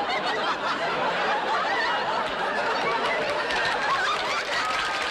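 Studio audience laughing in a sustained wave.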